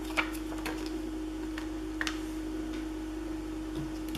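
A few faint, sharp ticks and clicks of adhesive enamel dots being peeled off their plastic backing sheet and pressed onto the paper layout, over a steady hum.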